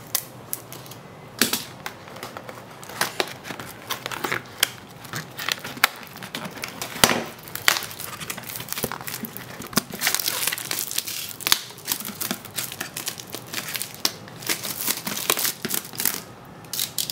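Clear plastic shrink wrap being torn and peeled off a cardboard graphics card box, crinkling and tearing with many sharp, irregular crackles.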